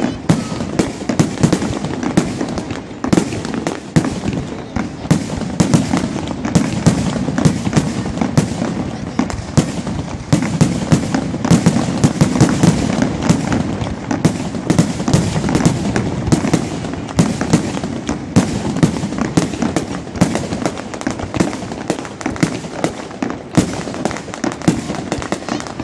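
Fireworks display going off in a dense, unbroken volley: several bangs a second, one after another, over a steady low rumble.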